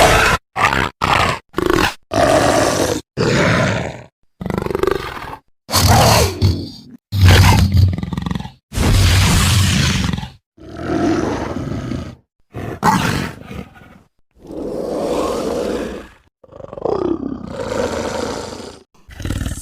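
Dinosaur (Deinonychus) sound effects: a string of separate roars and growls, each ending abruptly with a short silent gap before the next. The first few are short and come in quick succession; the later ones are longer, some sliding in pitch.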